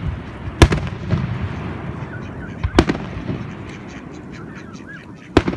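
Aerial firework shells bursting: three loud bangs roughly two seconds apart, with a fine crackle between them.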